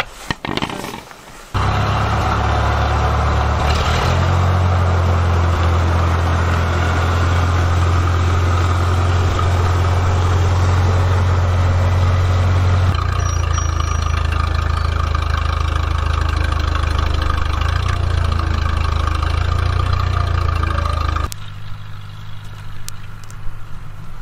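International Harvester 300 Utility tractor's four-cylinder engine running steadily, on a test run after its hydraulic fluid has been refilled. It starts sharply a second or two in, changes tone about halfway through and cuts off abruptly near the end.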